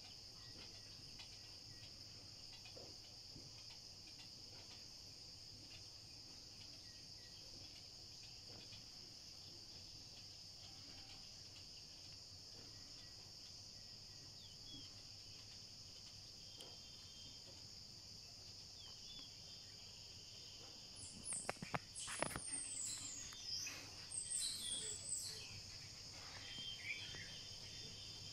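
Steady high-pitched chorus of crickets or other insects in tropical forest. A little over two-thirds of the way through comes a louder flurry of bird calls, several quick notes falling in pitch, mixed with a few sharp clicks.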